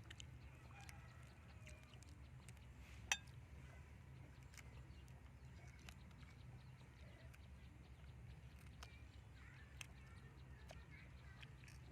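Near silence: a low steady hum with scattered faint clicks and one sharp click about three seconds in.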